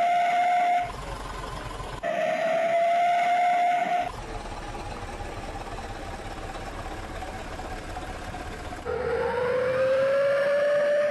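A bus's 'wolf' exhaust whistle (knalpot srigala) howling in long single-pitch blasts: one ending just after the start, another of about two seconds, and a longer one from about nine seconds in that rises in pitch. The bus engine runs steadily between the blasts.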